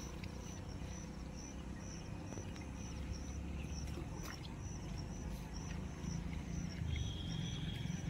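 Pond water sloshing as a man wades and drags a fine-mesh fishing net through it, under a steady low rumble. A short high chirp repeats about three times a second in the background.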